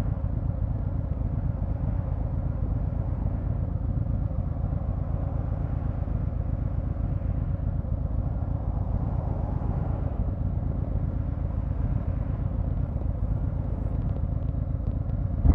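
Harley-Davidson Fat Boy 114's Milwaukee-Eight 114 cubic-inch V-twin idling at a standstill through Vance & Hines Eliminator 300 PCX slip-on mufflers: a steady, low, even rumble.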